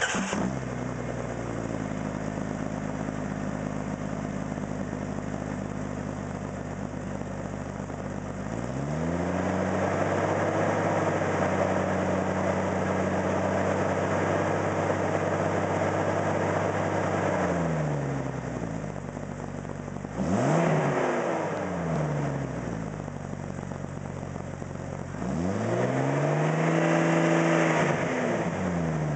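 Jeep Cherokee XJ's 4.0L HO straight-six exhaust through a 26-inch Cherry Bomb glasspack muffler. It idles at about 1,000 rpm, is raised and held at about 2,000 rpm for some eight seconds, and drops back to idle with one quick blip. Near the end it is raised and held at about 3,000 rpm, then falls back toward idle.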